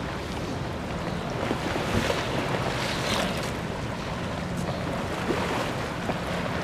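Wind on the microphone over river water lapping and washing across a flooded shoreline walkway, with a faint steady low hum underneath.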